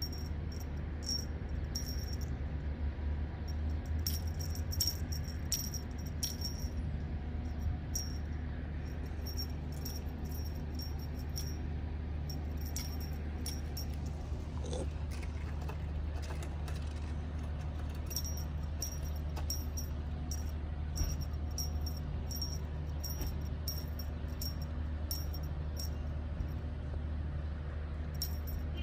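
Steady low hum of outdoor air-conditioner units, with many short, high ticks or chirps scattered through it in clusters.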